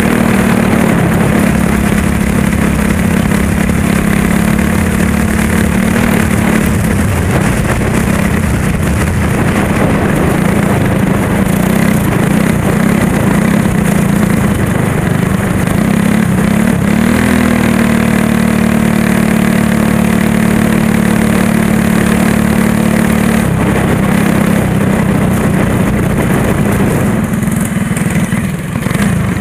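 Go-kart engine running at speed, heard close up from onboard: a loud, mostly steady drone whose pitch sags and climbs again a little past halfway, with a brief drop in loudness near the end.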